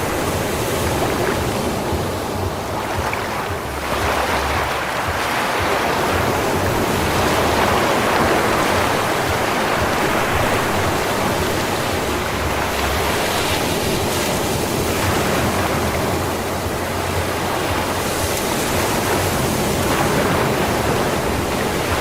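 Ocean waves breaking and washing up a sand beach, a continuous surf hiss that swells and eases every few seconds.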